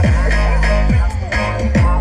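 Music with heavy bass playing loudly through a car audio system with a Pioneer subwoofer. A deep kick drum drops in pitch three times.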